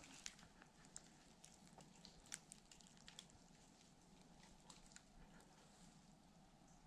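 Near silence: faint ambience of a still, snowy conifer forest, with a scattering of small ticks, more of them in the first few seconds.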